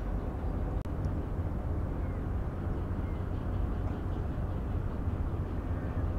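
Steady low rumble of ships' diesel engines idling in the harbor, from the tugboats standing alongside the frigate, with a few faint short chirps over it.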